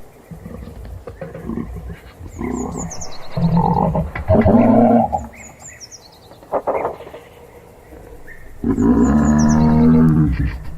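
Giraffe giving low, droning hum-like calls, two long ones of about two seconds each, with weaker short ones between. A bird chirps repeatedly in the background.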